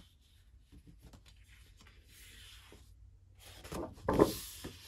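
Sheets of double-sided patterned scrapbook paper being handled on a tabletop: faint sliding, rubbing and light taps, then a louder rustle a little before the end as a sheet is lifted and flipped over.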